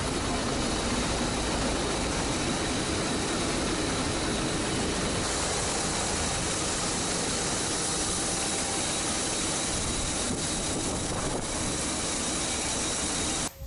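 Steady heavy machinery noise from a Changlin wheel loader's diesel engine running as the loader raises and tips a bucket of grain.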